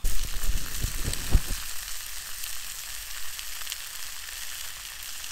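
Bacon-wrapped pork fillets searing in hot bacon fat in a cast-iron skillet over a wood fire: a steady sizzle with fine crackling pops. A few low thumps in the first second and a half.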